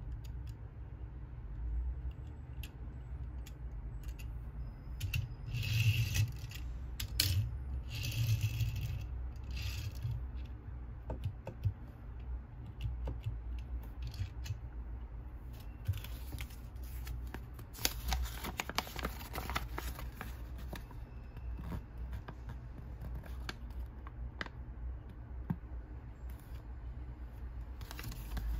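Handling noises of a small die-cast Tomica toy car on a wooden table: light clicks and taps, with a few short rustling bursts. Near the end a folded paper leaflet crinkles as it is unfolded, over a steady low hum.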